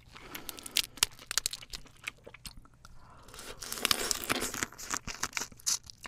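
Close-up crunching and cracking as a cooked, sauce-coated crab's shell is pulled apart by hand: a rapid run of sharp cracks, the loudest about a second in. Then wet chewing of the crab meat from about four seconds in.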